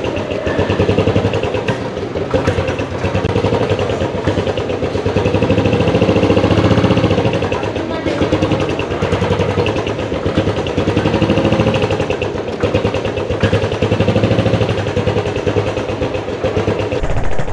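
Royal Enfield Classic 500's single-cylinder engine running at low speed, its revs rising and easing several times with the throttle as the bike is ridden slowly, inside a covered concrete car park.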